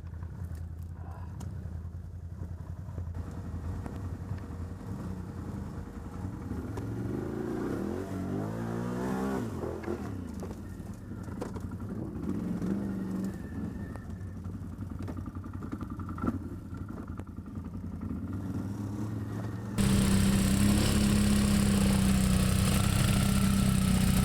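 ATV engines running, revving up and down a few times in the middle. About twenty seconds in, the sound jumps suddenly much louder and rougher.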